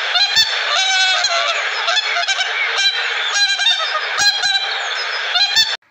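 A flock of white domestic geese honking, with many short calls overlapping and repeating.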